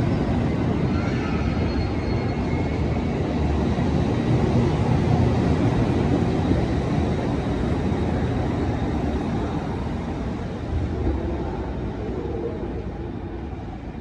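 JR Kyushu 787 series electric express train moving out past the platform, a steady heavy rumble of wheels on rail that eases off over the last few seconds as the last car clears.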